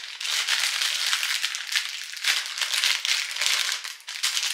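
A small plastic packet crinkling steadily as it is handled and pulled open by hand, with a brief lull near the end.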